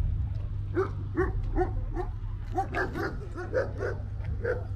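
A dog barking about ten times in quick succession, starting about a second in, over a low steady rumble.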